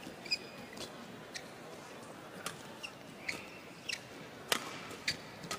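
Badminton rally: sharp racket strikes on the shuttlecock about once a second, the loudest about four and a half seconds in. Short high squeaks of players' shoes on the court come between the strikes.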